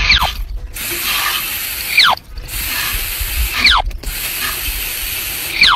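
Water blasting out of a Jeep's exhaust pipe with the engine running: a loud hissing spray in bursts about every two seconds. Each burst opens with a quick falling whistle.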